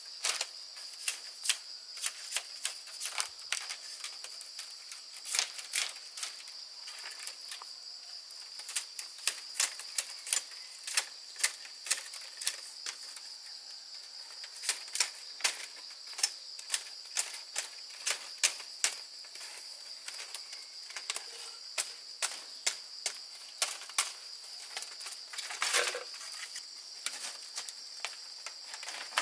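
Irregular sharp taps and clicks, several a second in clusters with short gaps, over a steady high-pitched insect drone.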